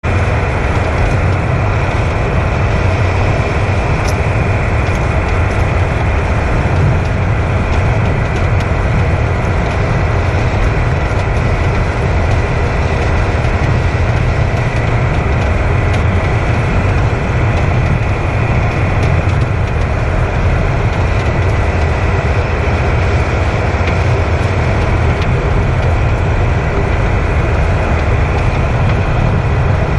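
Steady, loud low rumble of a moving vehicle, with a few faint knocks: the clunking noise being recorded.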